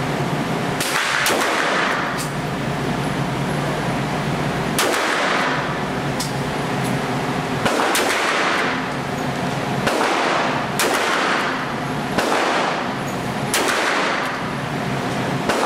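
Smith & Wesson Model 28 .357 Magnum revolver fired shot after shot, roughly one to three seconds apart, each report echoing off the walls of an indoor range. A steady hum runs underneath.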